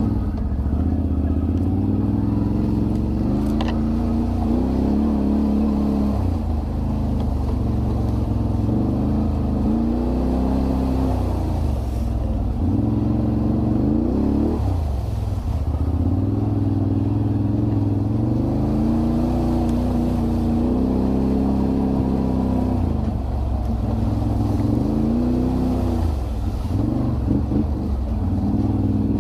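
Can-Am Renegade 1000 ATV's V-twin engine running while being ridden, its revs rising and falling repeatedly with the throttle.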